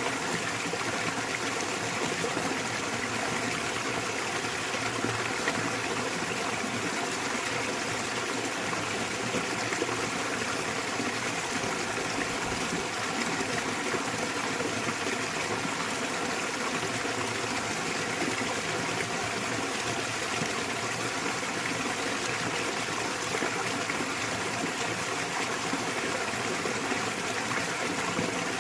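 Small waterfall in a mountain valley stream, water splashing and flowing in a steady, even rush.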